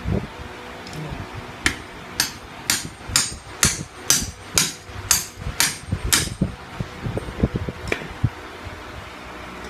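Hammer striking metal about ten times in a steady rhythm, roughly two blows a second, each blow ringing brightly. One more, weaker blow and a few dull knocks follow near the end.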